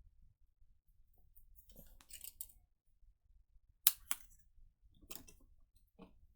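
Stamped cardstock being cut out and handled: a few short, scattered paper rustles and snips, with two sharp clicks close together about four seconds in, the loudest sounds.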